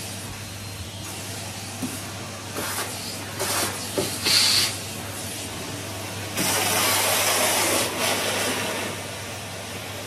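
Numatic Henry tub vacuum cleaner running with a steady hum, its hose sucking at the carpet. The air rush through the hose grows louder twice: briefly about three and a half seconds in, and again for a second and a half from about six and a half seconds.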